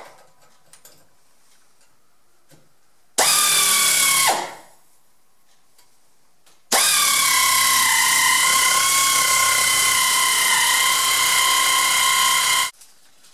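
An air-powered cut-off tool cutting the steel exhaust pipe: a steady high whine in a short run of about a second that spins down, then a longer run of about six seconds, its pitch wavering slightly as it cuts.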